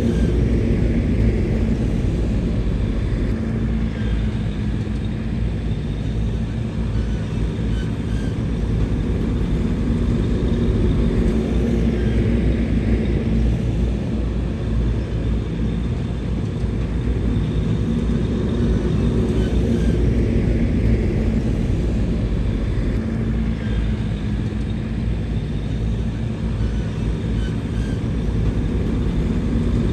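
Bulldozer's diesel engine running under load. It is a continuous low drone whose level swells and eases slowly every several seconds, with faint clinks scattered through it.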